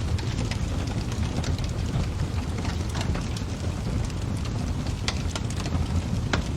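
Bonfire burning: a steady low rumble of flames with irregular sharp crackles and pops from the burning wood.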